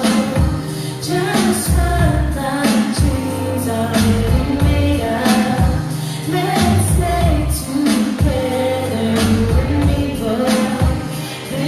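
A pop song with singing over deep bass and a steady drum beat.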